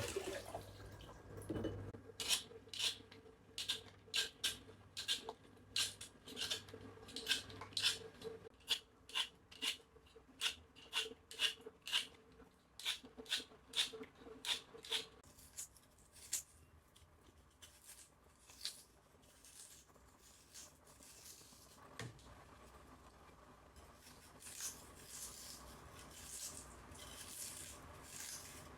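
Food being cut or pared by hand with a kitchen blade: short, crisp strokes about two a second, thinning out and growing softer after about fifteen seconds, over a faint steady hum.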